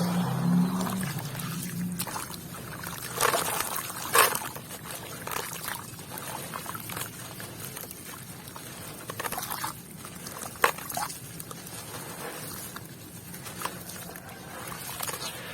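Wet sand and red dirt crumbling into water, with pouring, trickling and a crackling fizz. There are a few sharper splashes about three and four seconds in and again near the tenth second, and a low hum at the start.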